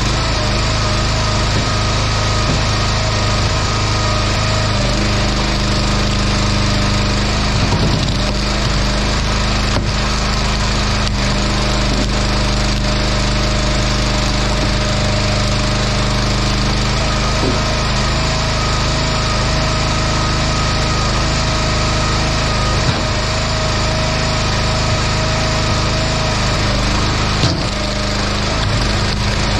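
Log splitter's small engine running steadily under load, with a few sharp cracks near the end as a white oak round splits on the wedge.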